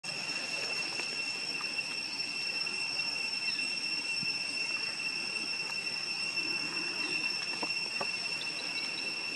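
Steady, high-pitched insect drone holding one unbroken tone, with a few faint ticks near the end.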